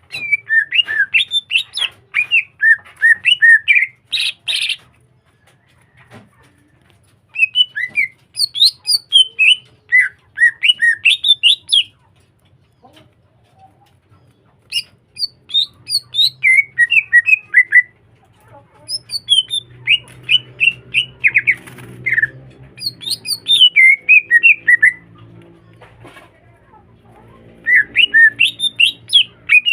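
Green leafbird (cucak hijau) singing loudly in bursts of rapid, varied, whistled chirps and trills, each burst a few seconds long with short pauses between.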